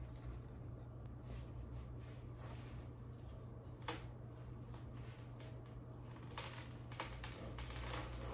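Rustling of large plant leaves and handling of a potted plant, with a sharp knock about four seconds in. Near the end come louder scraping and rustling as the pot is laid on its side on a table to pull the root ball out, and loose potting soil spills.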